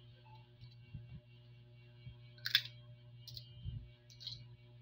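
Crab shell being picked apart by hand: a few short clicks and cracks, the sharpest about two and a half seconds in, over a steady low hum.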